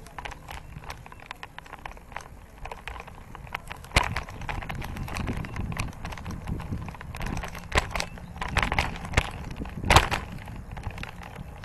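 Bicycle rattling over pavement, picked up through the handlebar-mounted camera: a low rumble with many sharp clicks and knocks, the loudest about four seconds in and another near the end.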